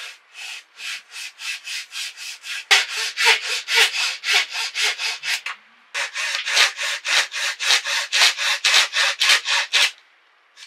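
Fine-toothed flush-cut hand saw cutting through a small wooden block in quick, even strokes, about three to four a second. The sawing breaks off briefly about halfway, then resumes until the piece is cut free near the end.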